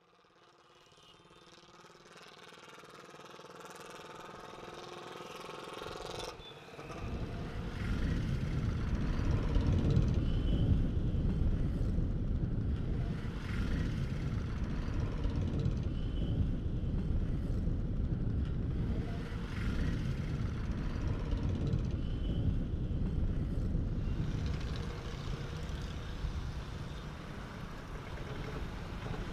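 A humming tone swells in over the first six seconds. It then gives way to the dense rumble of road traffic, with motorcycles and motorised three-wheelers passing close by.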